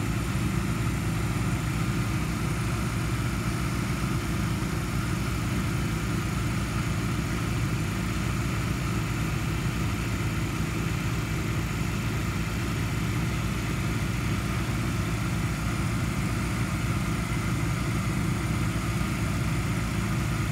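Small motorcycle engine idling steadily, an even low hum with no revving.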